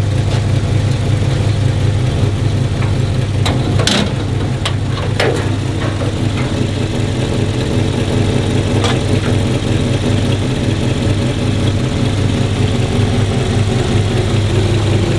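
1953 Studebaker Commander's V8 idling steadily, with a few sharp clicks and knocks about four to five seconds in as the hood is released and lifted.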